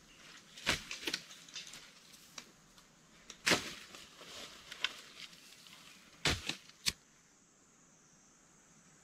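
Scattered sharp clicks and knocks with some rustling, like objects being handled, stopping about seven seconds in. After that, only a faint steady high hiss remains.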